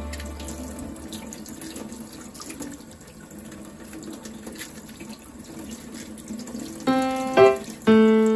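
Tap water running into a stainless steel sink and splashing over hands rinsing cabbage leaves. Piano music comes in near the end, louder than the water.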